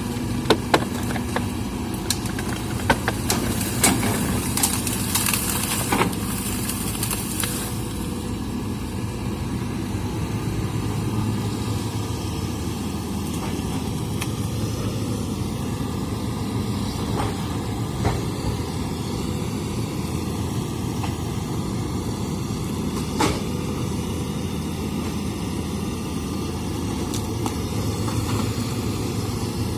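Hitachi excavator's diesel engine running steadily, with sharp knocks and clanks and a brief hiss in the first several seconds, then a few single knocks.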